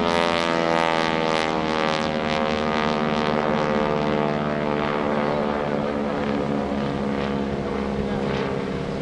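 North American SNJ (T-6 Texan) flying overhead, its nine-cylinder Pratt & Whitney R-1340 radial engine and propeller running with a steady drone whose pitch falls slowly as it passes. The sound is harshest in the first few seconds.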